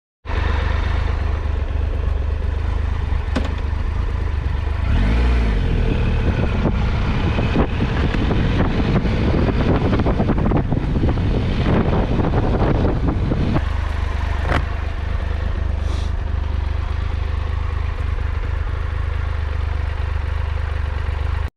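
Triumph Tiger 1200 XCA's three-cylinder engine under way, with a heavy low rumble throughout. The engine builds and revs harder from about five seconds in, then eases off after about fourteen seconds, with a few sharp clicks along the way.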